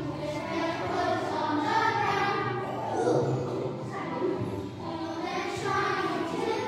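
Children's voices singing a song together in chorus, with musical accompaniment.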